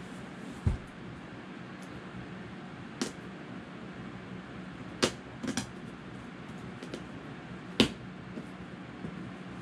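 A cardboard gift box being opened by hand: a few short, sharp clicks and knocks from the box and its contents, over a steady low hum.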